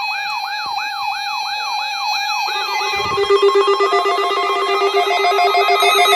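Electronic emergency-alert siren tones: a fast siren rising and falling about three times a second over a steady tone. About two and a half seconds in, a lower, rapidly pulsing alarm tone joins and becomes the loudest sound.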